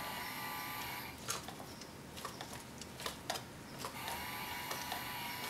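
Faint clicks and rustles of fingers twisting thin clock wires together, over a faint steady tone that stops about a second in and comes back about four seconds in.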